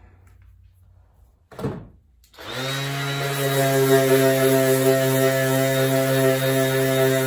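A single thump, then an electric orbital sander switches on a little over two seconds in, spinning up quickly and running at a steady hum.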